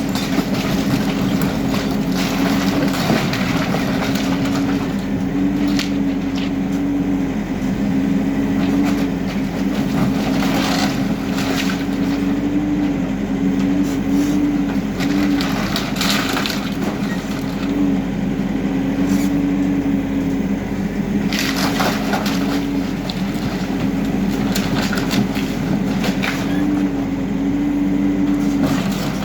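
HIDROMEK K4 Alpha backhoe loader's diesel engine running, its pitch rising briefly under load every so often. Rubble cracks and crunches again and again as the machine breaks down a building, with the heaviest crashes about ten, sixteen and twenty-two seconds in.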